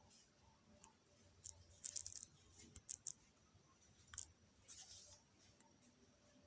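Near silence with scattered faint clicks, several in quick clusters around the second and third seconds and a few more near four and five seconds.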